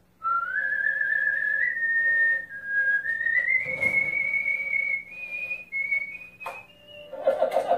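A man whistling a tune by mouth: a single clear line of held notes with small slides, climbing slowly in pitch over the phrase. He is a champion whistler. There is a sharp click about six and a half seconds in, and voices come in near the end.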